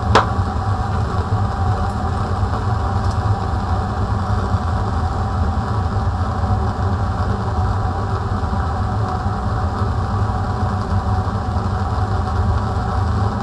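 Steady rushing drone of a fume cupboard's extraction fan running, together with a Bunsen burner flame heating a test tube. A brief knock comes right at the start.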